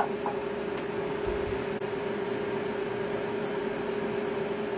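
Steady machine hum with an even hiss, one held tone throughout. Right at the start comes a light click as a hand tool is set down on the table.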